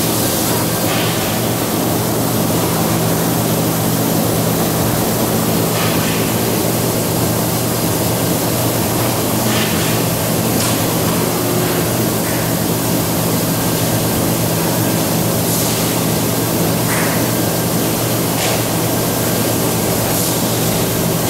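CNC laser cutting machine at work on a sheet of aluminium: a steady hiss with a low hum underneath, and a few faint short hisses every few seconds.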